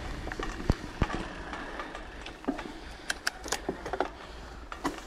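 Mountain bike rolling along a trail: irregular clicks and rattles from the bike over a steady low rumble.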